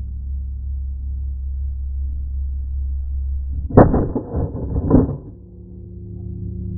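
Two shotgun shots at flying geese, about a second apart, each a sharp loud crack that overloads the camera's microphone, over a steady low rumble.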